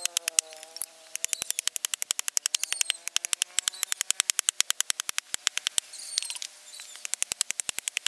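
Machete blade chopping into a bamboo strip on a wooden log, sped up by fast-forwarding into a fast, even run of sharp clicks. A faint wavering tone sits underneath during the first few seconds.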